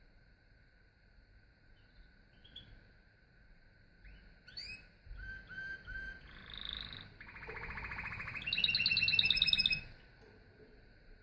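Canary singing. About halfway in, a song phrase starts with a few short rising notes and three repeated whistled notes. It moves into trills, the last a loud, fast rolling trill that stops abruptly.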